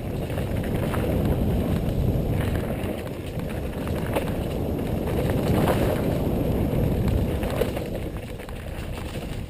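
Wind rushing over the microphone and a mountain bike rolling fast down a dirt trail, with a few sharp rattles. The noise swells twice and eases off near the end.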